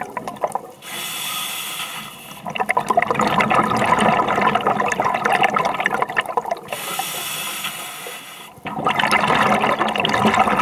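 Scuba regulator breathing underwater: two steady hisses of inhalation through the regulator, about a second in and again about seven seconds in, each followed by a long gurgle of exhaled bubbles.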